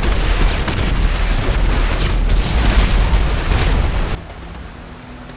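Loud rumbling blast of an explosion, with a few sharp cracks in it, cut off suddenly about four seconds in; after it comes a much quieter sound with a few steady tones.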